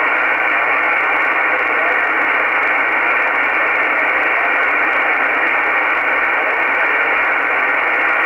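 Icom IC-R8500 communications receiver in upper-sideband mode on the 20-metre amateur band, putting out steady band noise between transmissions. It is an even hiss with the high end cut off sharply by the narrow sideband filter.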